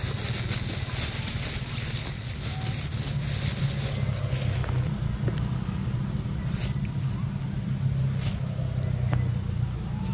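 A steady low rumble, with a few sharp clicks and rustles, and a short high chirp about five seconds in.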